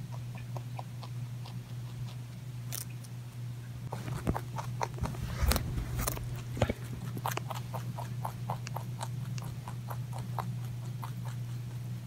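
A rabbit biting and chewing a raw carrot: a run of quick, crisp crunches, about four a second, loudest and busiest around the middle. A steady low hum runs underneath.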